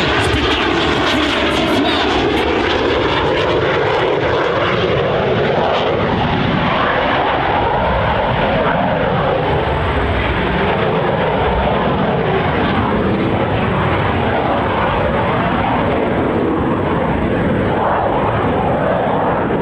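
Jet engines of Aermacchi MB-339 trainers flying the display, a continuous loud jet noise that swells and sweeps in pitch as the aircraft pass.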